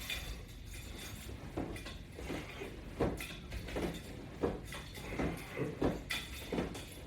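A person working out: soft, rhythmic knocks and movement sounds, about two a second.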